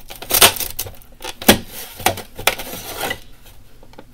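Utility knife scoring through white craft board beside a metal ruler: a run of short scrapes and clicks, the sharpest about one and a half seconds in.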